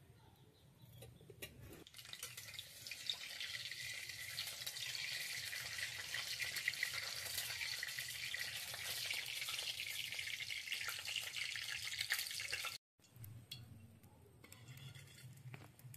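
Hot oil sizzling and crackling in an aluminium kadai as it is stirred with a spatula. The sizzle builds about two seconds in, holds steady, then breaks off abruptly near the end and returns fainter.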